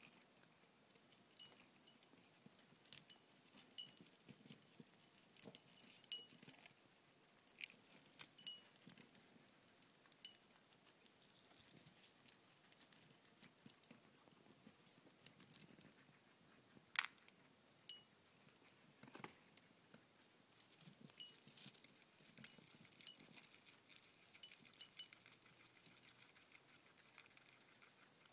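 Guinea pigs chewing and tugging at fresh salad greens: faint, irregular crunching and nibbling with many small clicks and ticks, a few sharper ones now and then.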